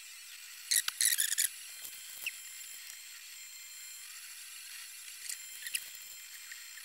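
Short plastic clicks and scrapes of a 3D-printed tire mold being handled and poked at with a stick: a quick cluster about a second in, one more shortly after, and a few near the end, over a faint steady hiss.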